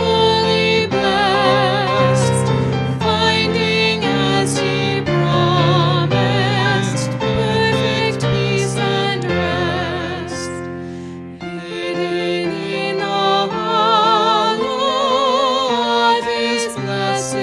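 A hymn sung with vibrato over sustained instrumental accompaniment, dipping briefly between phrases about two-thirds of the way through.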